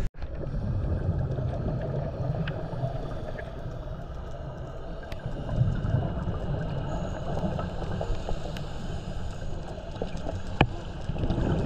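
Muffled underwater ambience: a steady low rumble of water noise, broken by a few sharp clicks, the loudest near the end.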